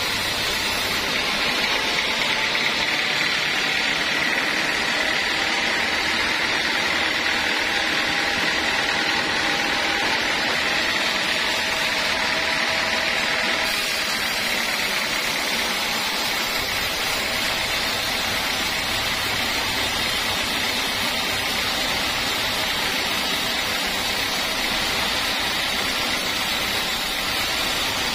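Band sawmill running with its blade cutting lengthwise through a large teak block: a steady hiss of sawing with a high, even whine from the machine.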